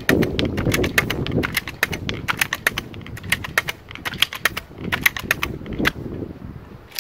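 Seneca Dragonfly Mk2 multi-pump air rifle being pumped: the forearm pump lever is worked up and down repeatedly, giving a quick, irregular rattle of clicks from the pump linkage. One sharper click comes near the end.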